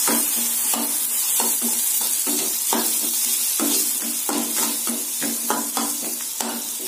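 Onions, tomato and ginger-garlic paste sizzling in hot oil in a stainless steel kadai while a steel ladle stirs and scrapes the pan, about two or three strokes a second over a steady frying hiss.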